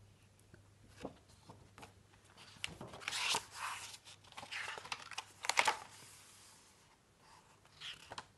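Pages of a large picture book being turned by hand: a few light taps, then two louder paper rustles about three and five and a half seconds in, and a softer rustle near the end.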